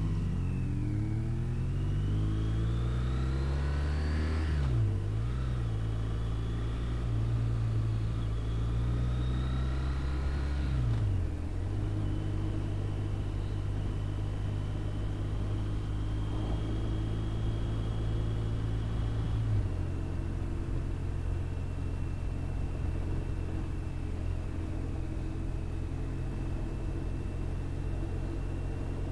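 BMW RT touring motorcycle's boxer-twin engine under way, recorded from the bike with wind rumble on the microphone. The engine note rises as the bike accelerates and drops sharply at upshifts about five and eleven seconds in. It then holds steady at a cruise and steps down a little about twenty seconds in.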